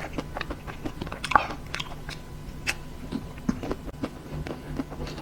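Close-up chewing and crunching of a chocolate-coated ice cream bar's crisp shell: a quick run of small crackles, with one louder bite about a second and a half in.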